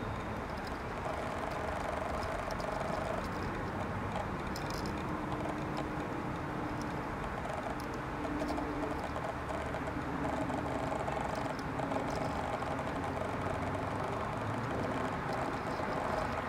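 Steady outdoor background noise with faint humming tones that come and go.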